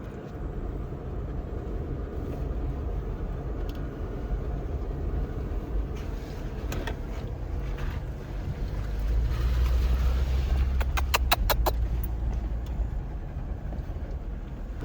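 Jeep engine running while driving a dirt trail, with a steady low rumble that gets louder from about nine seconds in as it takes more throttle. A quick run of about eight short ticks sounds around eleven seconds.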